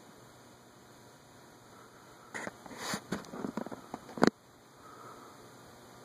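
A five-blade ceiling fan running quietly with a low hum. About two seconds in comes a quick cluster of clicks and knocks, ending in one sharp, loud click.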